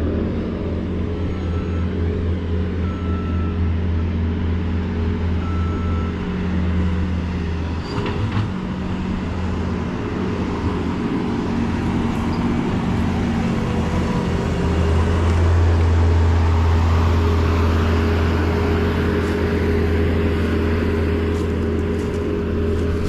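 Heavy diesel engine of a bulldozer running under load, with three short beeps of a reversing alarm in the first six seconds. The engine falls back briefly about eight seconds in, then works harder and louder from about fifteen seconds.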